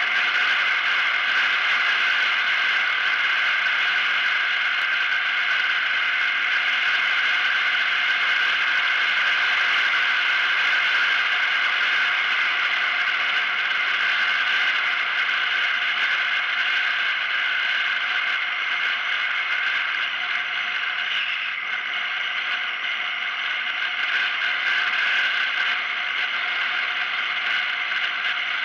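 Steady running noise of a car on the move, with tyre and road noise and a mechanical rattle, as heard through a windscreen-mounted dashcam's built-in microphone.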